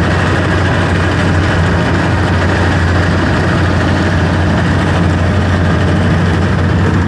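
Tractor engine running at a steady speed, a constant low hum with no change in pitch or level.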